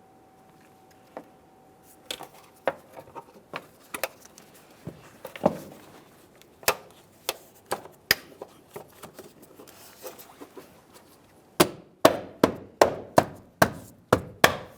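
Plastic door trim panel being pressed and knocked into place, its alignment pins and locking clip seating: scattered clicks and knocks, then a quick run of about eight sharp knocks near the end.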